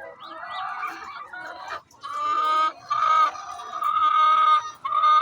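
Hen giving her pre-laying call: softer clucking, then from about two seconds in four loud, drawn-out calls in quick succession, the noise a hen makes before laying an egg.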